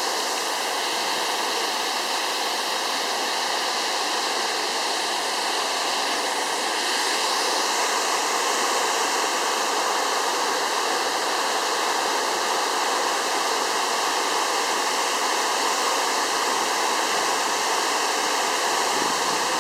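Waterfall rushing: a steady, unbroken roar of falling water, a little louder from about seven seconds in.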